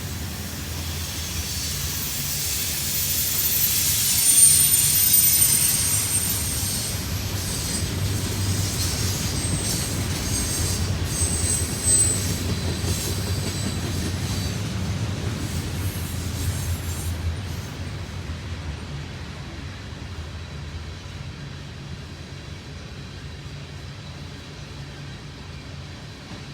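Train rolling past, its wheels squealing in a high, thin tone loudest about four to five seconds in, over a low rumble that slowly fades away in the second half.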